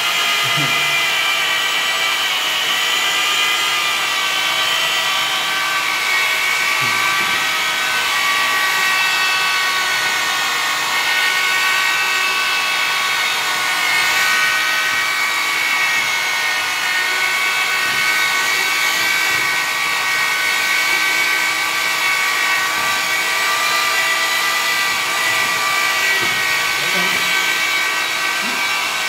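Electric drill with a paddle mixer running steadily in a bucket, stirring wall putty paste; the motor's whine holds on without a break and wavers slightly in pitch as the load changes.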